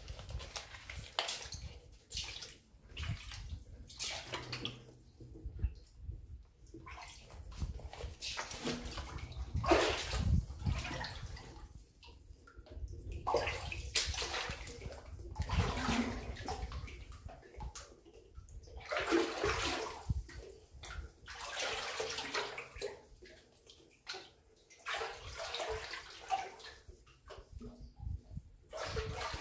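Feet wading through shallow water over a rock floor, sloshing and splashing in uneven surges every second or two.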